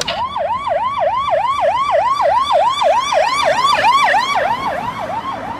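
Police car siren sounding a fast yelp, a quickly sweeping wail repeating about four times a second, fading slightly near the end.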